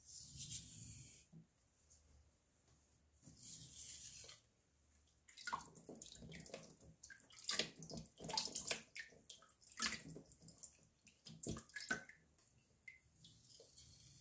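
Two short splashes of water on a wet whetstone, then a kitchen knife's blade scraping and clicking in quick, irregular strokes across the stone.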